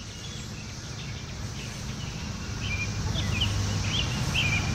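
Small birds chirping over a low steady rumble of background ambience, picked up by the recorder's stereo mics with its studio reverb switched on. The chirps come more often and the rumble grows a little louder toward the end.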